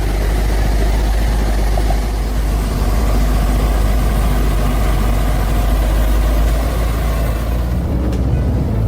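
Logging truck's diesel engine running with a steady deep rumble that shifts in tone near the end.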